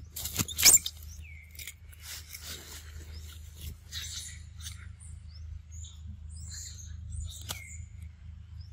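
A young macaque eating a piece of ripe fruit: wet biting and chewing with sharp clicks, the loudest about half a second in, and scattered light crackles and rustles over a steady low rumble.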